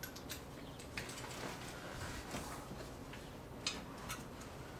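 A handful of light, sharp clicks and taps, irregularly spaced, from metal parts and a bolt being handled while the front crash bar and radiator support are fitted.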